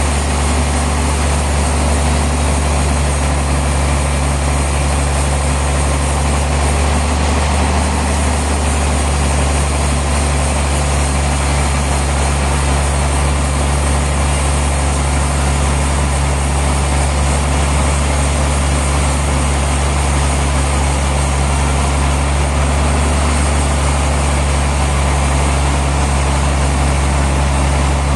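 Heavy sawmill machinery running steadily: a deep engine-like hum with steady low tones under an even, loud din that does not change.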